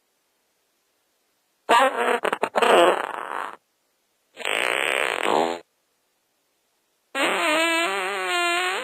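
Three fart sounds separated by dead silence: a sputtering one about two seconds in, a shorter airy one in the middle, and a long, squeaky, wavering one starting near the end.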